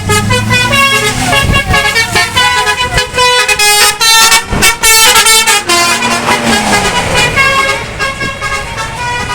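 Bus 'telolet' Basuri multi-tone air horn playing a quick melody of stepped notes, with the bus engine's low rumble underneath.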